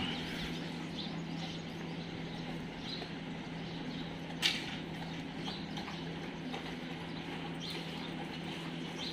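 Dogs moving about on a tiled floor: faint clicks and scuffs of their claws over a steady low hum, with one sharper knock about four and a half seconds in.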